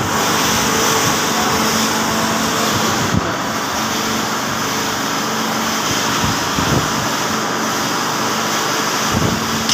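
Steady running noise of a machine, with a faint constant hum under a loud even hiss and a few soft handling thumps.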